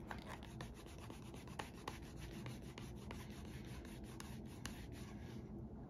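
A small hand tool scraping and rubbing along the edge of a leather insole in quick, repeated short strokes, with a few sharper clicks.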